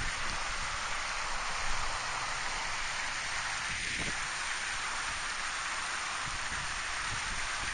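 Steady rushing hiss of a river's flowing current.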